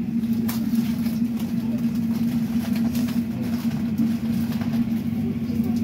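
Cabin noise inside a Class 345 Elizabeth line train: a steady low hum of unchanging pitch over a constant rumble, with a few faint clicks.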